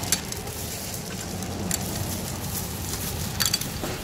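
Thin plastic bag crinkling as small plastic dessert cups are packed into it, with a few short sharp clicks of the cups knocking together, over a steady low street hum.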